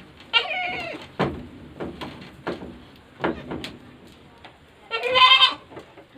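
Goats bleating: two drawn-out bleats, one just after the start and a louder one near the end.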